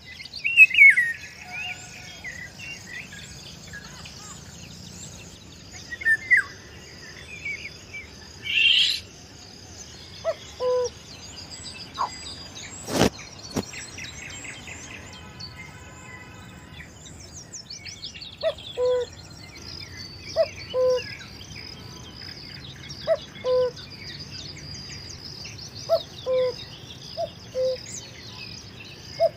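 Several birds calling and chirping over a steady high-pitched insect hum. From about the middle on, a low two-note call repeats every couple of seconds, and a single sharp click sounds about halfway through.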